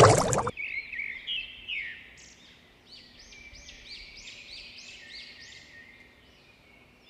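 A loud rushing noise that cuts off abruptly about half a second in, then small birds chirping: a quick series of repeated arched chirps that fades out before the end.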